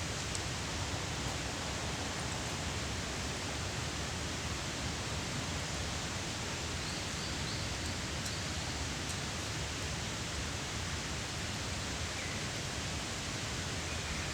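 Steady, even rushing outdoor noise, with faint bird-like chirps about halfway through and near the end.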